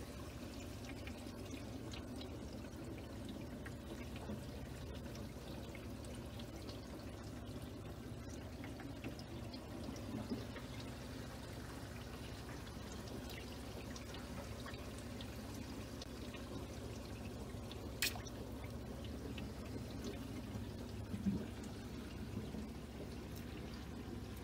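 Aquarium water trickling and splashing steadily over a low hum from the tank's filter pump, with scattered small ticks and one sharp click about three-quarters of the way through.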